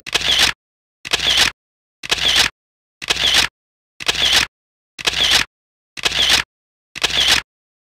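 Camera shutter sound effect repeated about once a second, eight times in a row, each lasting about half a second and cutting off into dead silence.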